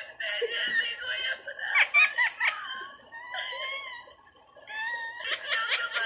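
Green ring-necked parakeet vocalizing in a run of short, high-pitched, chattering calls and mimicked speech sounds, with a brief pause about four seconds in.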